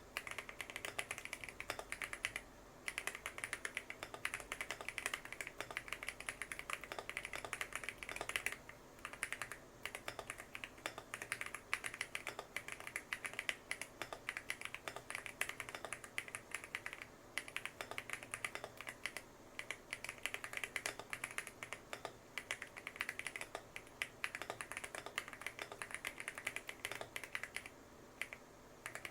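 Steady fast typing on a custom 65% mechanical keyboard with tape-modded PBT cherry-profile keycaps. Keystrokes come in dense runs broken by a few short pauses.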